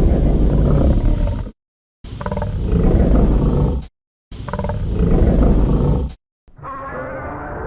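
Heisei-era Burning Godzilla roar sound effect, played three times as separate clips of about two seconds each with brief silence between. About six and a half seconds in, a quieter, more muffled sound effect begins and keeps going.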